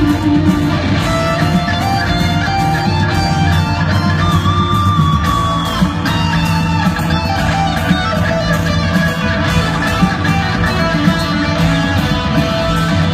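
Live rock band playing an instrumental passage at concert volume, with guitars to the fore over bass and keyboards.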